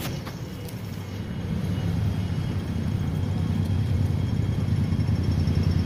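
Low rumble of a vehicle engine, growing steadily louder, with a sharp click right at the start.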